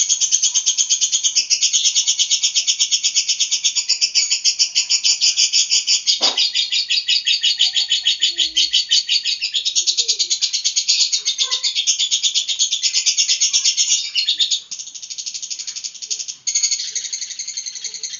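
Caged lovebird in long-duration ngekek: a loud, high-pitched, unbroken chattering trill of many rapid notes a second. It drops quieter about fourteen seconds in and picks up again near the end.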